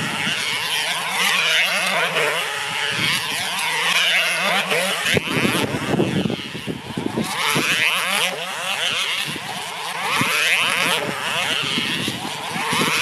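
Tether car's small four-port model engine running flat out at about 57 mph, a high-pitched scream that rises and falls as the car laps the circular track and passes by, about every two seconds.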